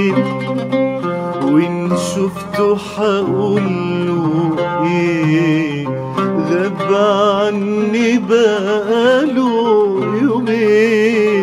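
Male voice singing a long, ornamented Arabic tarab melody with wavering pitch, accompanied by a plucked oud.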